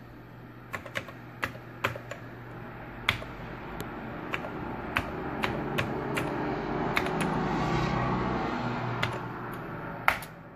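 Keys being pressed one at a time on a Commodore 64 keyboard as a SAVE command is typed, separate irregular clicks, the sharpest near the end.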